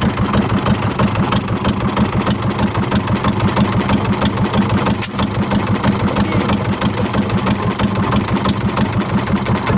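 A small boat's engine running steadily with a fast, even putter.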